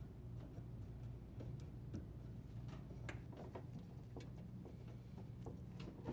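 Faint, irregular clicks and light taps of tools working a dishwasher's leveling legs, over a low steady hum.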